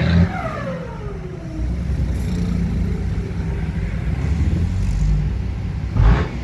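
Ford F-250 pickup engine through an aftermarket exhaust pipe: the revs fall away over about a second and a half and settle into a low, steady idle rumble. A brief loud burst, likely a quick rev, comes near the end.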